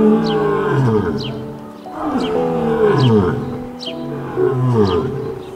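Lion roaring: three long calls about two seconds apart, each sliding down in pitch, over soft background music.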